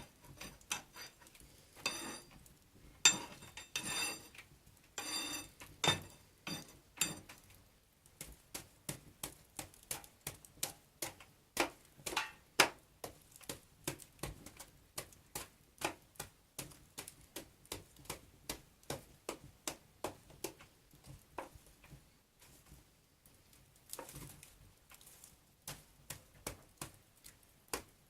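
Metal cooking utensils clinking with a ringing tone, then a long run of quick, even knocks, about three a second, that thin out to a few softer ones near the end.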